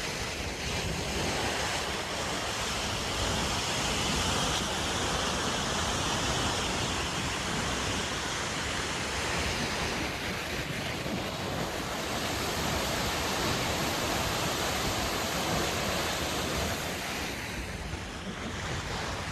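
Waterfall's falling water, a steady dense rush that eases slightly near the end.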